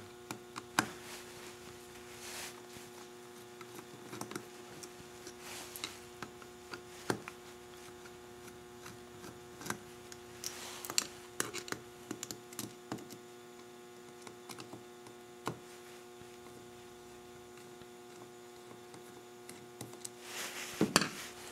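Scattered small metallic clicks and ticks of a screwdriver turning out the diaphragm cover screws on a CV carburetor, coming at irregular intervals over a steady electrical hum.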